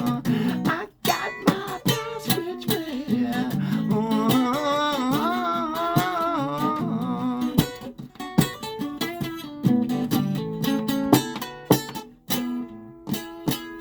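Guitar strumming through the song's instrumental ending, with a wavering held melody line for a few seconds in the middle.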